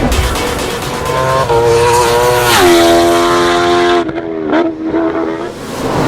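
A high-revving sport motorcycle engine accelerating hard: its pitch climbs, drops sharply about two and a half seconds in, and dips and rises again near the end. Electronic music plays underneath.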